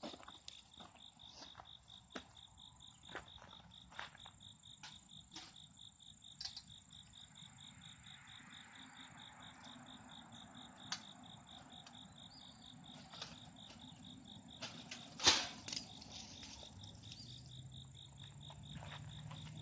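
A steady, high, fast-pulsing insect trill, with scattered clicks and knocks from a wire live-animal trap being handled and opened by gloved hands. The loudest knock comes about three-quarters of the way through.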